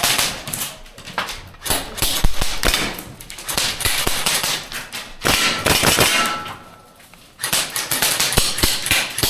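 Airsoft gunfire: rapid sharp cracks and clacks in runs, with a short lull about seven seconds in.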